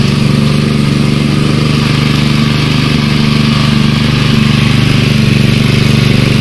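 Small petrol engine driving a sugarcane juice press, running loud and steady at a constant speed.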